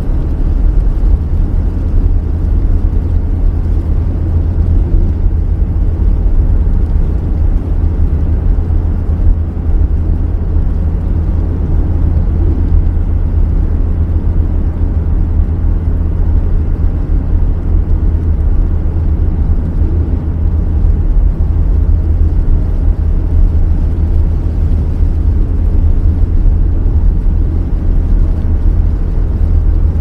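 Car driving in the rain: a steady low rumble of road and engine noise, with little hiss on top.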